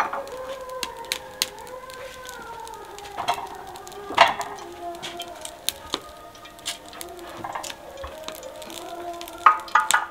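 Clay water pots knocking and clinking as they are handled and set down on a wooden stand, a few sharp knocks spread through. Behind them runs a drawn-out, slowly wavering tone.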